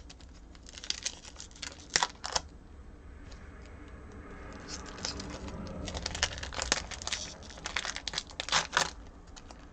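Cellophane wrapper of a Topps trading-card pack being torn open and crinkled by hand: a few sharp crackles, then a busier run of crinkling in the last few seconds.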